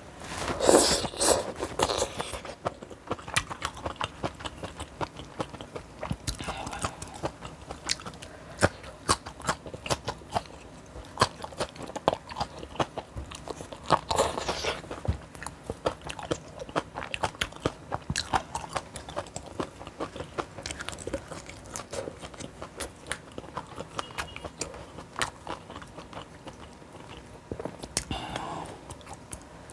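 Close-miked eating: steady chewing with many small sharp crunches. There are louder stretches about a second in, around the middle and near the end.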